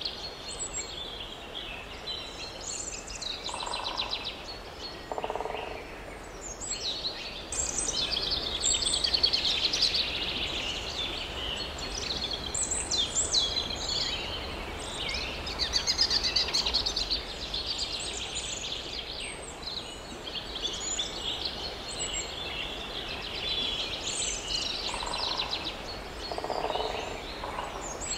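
Many songbirds singing at once in a forest: a dense, unbroken chorus of high chirps and trills. A few short, lower-pitched calls come near the start and again near the end.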